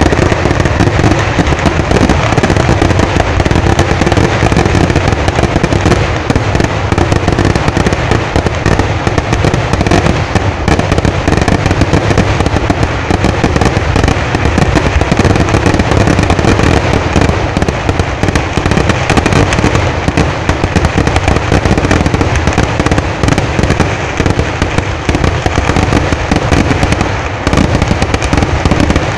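A dense, continuous barrage of ground-level fireworks going off in rapid succession, the blasts packed so close they merge into one unbroken rattle of explosions.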